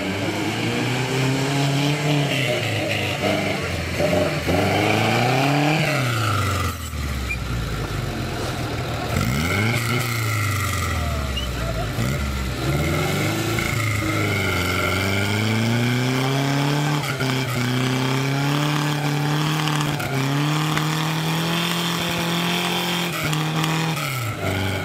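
A vintage car's engine revving up and down several times, then holding higher revs for a few seconds before backing off near the end, as it is worked to get away on a slippery, muddy trial hill.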